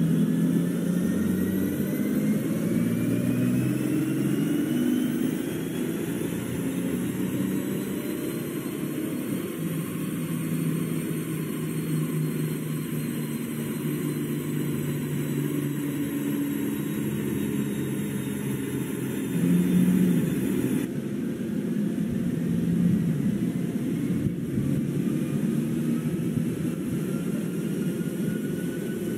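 Audi A7 45 TDI's 3.0-litre V6 diesel running hard under load on a chassis dyno, with a whine that climbs steadily in pitch as speed rises on the rollers. About 21 seconds in the sound cuts and a second rising run begins.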